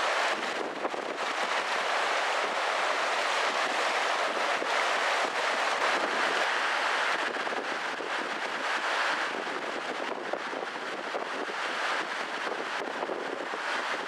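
River water rushing steadily: an even, unbroken hiss.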